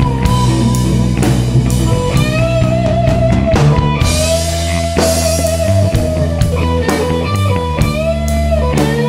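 Background rock music with guitar and drums, a steady beat under sustained, bending guitar notes.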